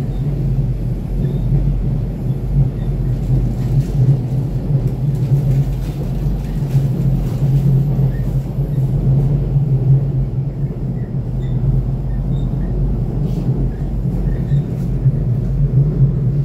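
Interior noise of a moving electric passenger train: a steady rumble of wheels on the rails with a constant low hum and occasional faint clicks.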